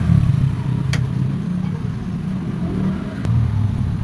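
A motor vehicle engine running steadily with a low drone, with two light metallic clicks, about a second in and just after three seconds, from shock absorber parts being handled.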